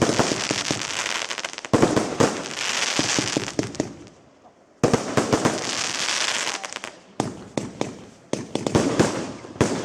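Fireworks display: shells bursting into long stretches of dense crackling, then a run of separate sharp bangs in the last few seconds.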